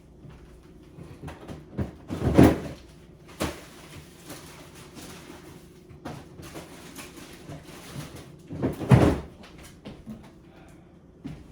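Two heavy thuds of a door being shut, about two seconds in and again near nine seconds, with lighter clicks and knocks of things being handled in a kitchen between them.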